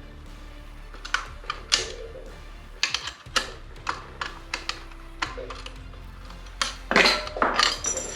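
Background music with a steady hum, over a dozen or so sharp clicks and knocks of parts and tools being handled, thickest in a cluster near the end.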